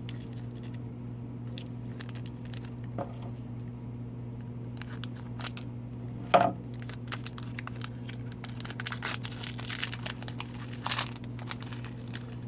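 An Upper Deck Series 1 hockey card pack's wrapper being torn open and crinkled, with light clicks of cards being handled and a burst of crinkling near the end. A steady low hum runs underneath.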